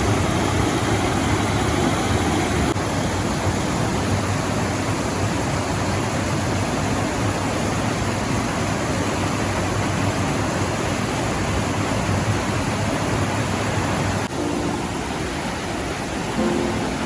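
Steady rushing of water in a rocky mountain stream, with a slight drop in level about fourteen seconds in.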